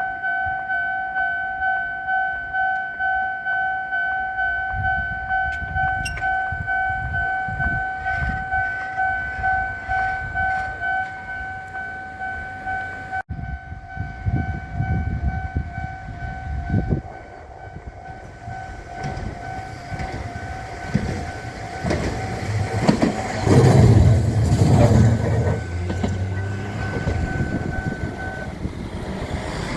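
Japanese level-crossing warning bell ringing with a regular electronic ding, a little faster than once a second. A train passes over the crossing with clacking wheels, loudest about three quarters of the way through. The bell stops shortly before the end.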